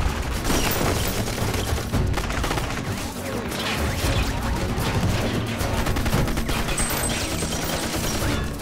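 Dense, sustained gunfire in a film shootout, many shots overlapping in a continuous volley, with a music score underneath.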